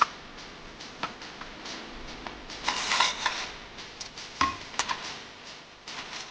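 Small objects being handled: a run of light clicks and knocks, with a busier clatter about three seconds in.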